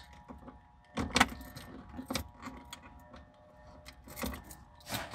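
Keys jangling on a key ring while a key is worked in the glove box lock of a 1998 Jeep Grand Cherokee ZJ. A few separate sharp clicks come from the lock and latch as it is tested.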